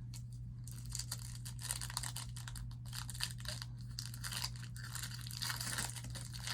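Foil Pokémon TCG booster pack wrapper being torn open and crinkled by hand, a continuous irregular crackle with sharper rips.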